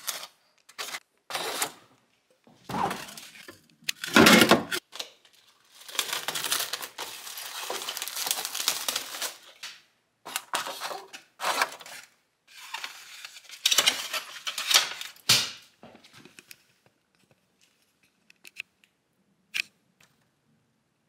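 Eggs being handled and moved from a cardboard egg flat into a styrofoam egg carton: irregular rustling, scraping and light knocks of shells against the cartons. For the last few seconds it thins to a few faint clicks.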